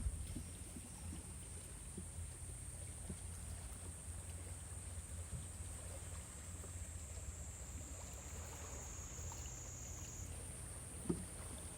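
Faint seaside ambience: a steady low rumble of waves and wind, with a thin steady high-pitched tone and a soft knock about eleven seconds in.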